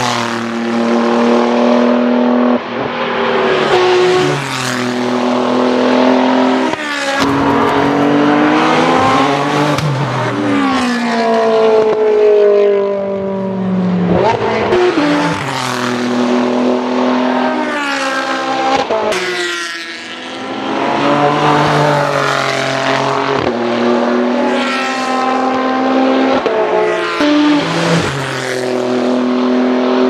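Renault R.S. 01 race car's twin-turbo V6 accelerating hard through the gears, its pitch climbing and dropping at each upshift over and over, with a few sharp cracks at gear changes.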